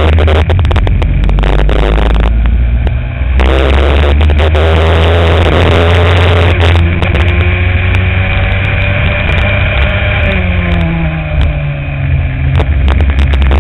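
Racing kart engine running hard through a lap, its pitch rising on the straights and dropping around ten seconds in as it slows for a corner, then climbing again. Short sharp crackles run over it throughout.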